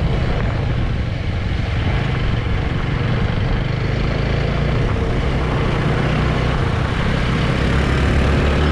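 Motorbike engine running steadily while riding, under a constant rush of wind and road noise.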